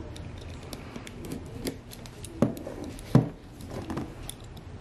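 Utility knife slitting the clear seal on a phone box: scattered small clicks and scrapes of the blade, with two louder knocks about two and a half and three seconds in.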